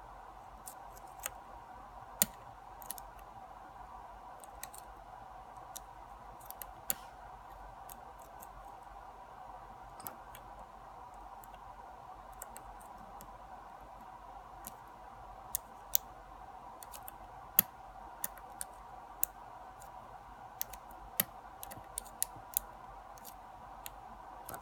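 Lock pick and tension wrench working the standard pin tumblers of a lock: irregular small metallic clicks and ticks, some sharper than others, over a faint steady hum.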